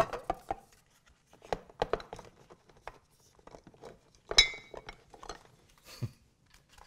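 Glass jars and bottles clinking and knocking as hands grope along pantry shelves, picking them up and setting them down. One sharp glass clink about four and a half seconds in rings briefly.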